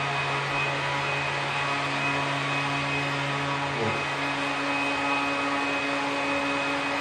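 Ryobi One+ 18-volt 5-inch cordless random orbit sander running steadily while sanding, a constant motor hum with a hiss over it.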